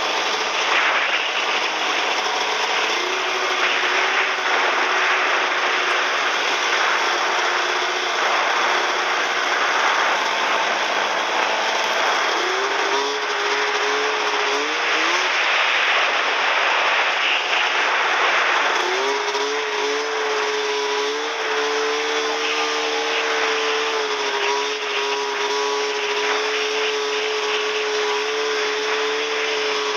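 Snowmobile engine running under way over packed snow, under a constant dense hiss from the track and snow. The engine note steps up in pitch about halfway through and again a little later, then holds steady to the end.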